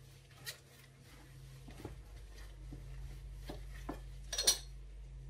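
A gloved hand kneading mashed potato and flour in a glass bowl: soft squishing with scattered light knocks and clinks of hand and dough against the glass, and a louder clatter about four and a half seconds in.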